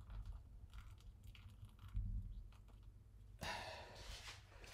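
Hot water poured from an electric kettle onto coffee grounds in a Hario pour-over dripper: a faint trickle with light ticks. About three and a half seconds in, a louder rushing hiss starts.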